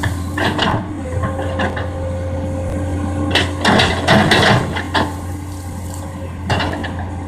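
Komatsu PC200 tracked excavator's diesel engine running steadily under working load, with irregular clattering knocks from the bucket and boom as it digs and clears; the heaviest clatter comes about halfway through, with more near the end.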